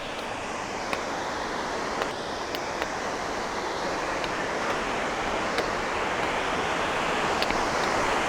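Steady rushing of a waterfall, growing gradually louder, with a few faint ticks over it.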